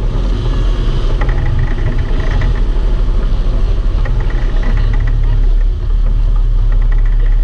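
Sportfishing boat's engines running steadily, loud and low.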